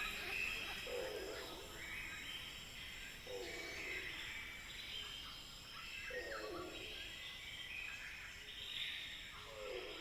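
Jungle ambience: insects buzzing steadily at a high pitch, with bird calls and a lower call repeated four times, about every two to three seconds.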